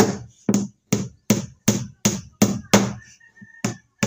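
Hammer driving bronze nails into a plywood boat hull: quick, even strikes, about three a second, with a short pause about three seconds in.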